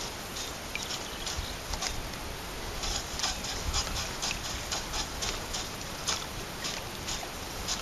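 Light, irregular ticks and taps around the kayak, a few a second, over a steady low rumble of wind on the microphone.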